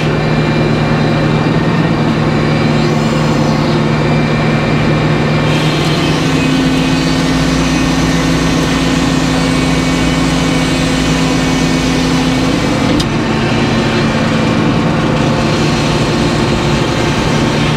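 Large circular sawmill headsaw cutting a slab off an oak log as the carriage feeds it through the blade, over the steady running of the mill's power unit. The cutting is loudest in the middle of the pass, from about six to thirteen seconds in.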